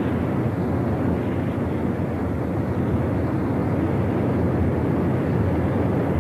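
Steady, deep roar of a Hawaiian lava eruption: molten lava pouring and venting gas.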